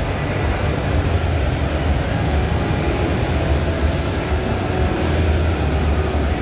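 Steady low rumble with a general background din, echoing in a large indoor truck show hall.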